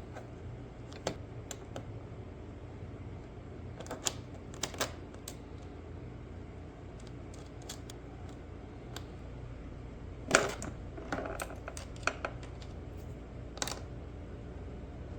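Scattered small clicks and taps of hand tools and small metal parts being handled while riveting a motorcycle dash panel together with small copper tube rivets. The loudest knock comes a little past ten seconds in, followed by a short run of clicks, over a steady low hum.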